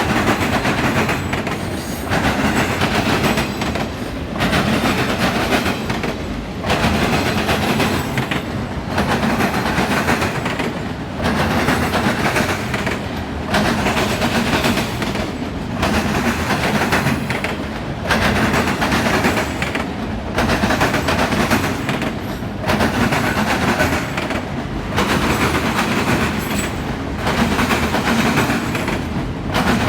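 Freight train of auto rack cars rolling past, its wheels running over the rail with a steady rumble and clatter. The sound swells and dips evenly about every two seconds as each car goes by.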